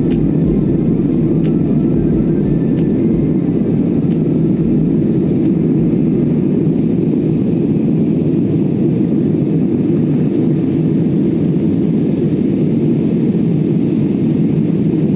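Steady cabin noise inside an Airbus A320-200 climbing after takeoff: the engines and rushing air make an even, low-pitched rumble that holds constant.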